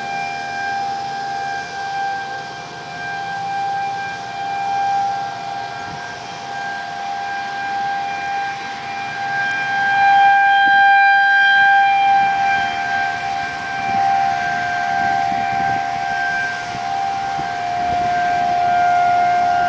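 Outdoor tornado warning sirens sounding a long, steady wail that swells and fades, with two sirens at slightly different pitches overlapping; loudest about halfway through.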